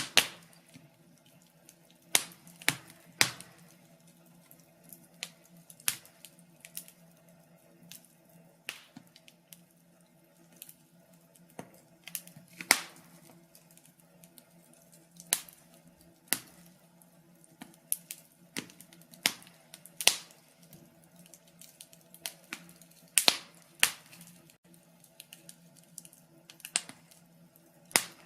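Wood fire crackling: irregular sharp pops and snaps, a few of them loud, over a faint steady low hum.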